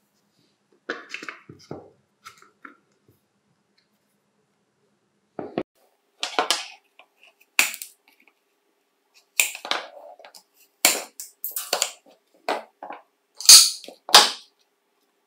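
Irregular sharp clicks, snaps and scrapes of hard plastic being worked by hand: a small blade trimming the inner ribs of a jigsaw's plastic housing. The loudest knocks come near the end, as a metal DC motor is pressed into the housing.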